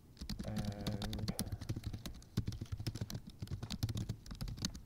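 Typing on a computer keyboard: a fast, uneven run of key clicks as a username is entered at a terminal login prompt.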